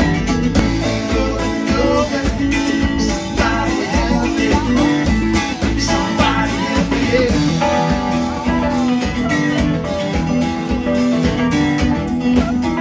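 Live band playing: guitars over keyboard and a drum kit, with a steady beat.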